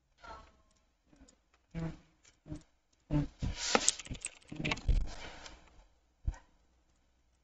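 Typing on a computer keyboard: a quick run of key clicks through the middle, with a few single clicks before and after.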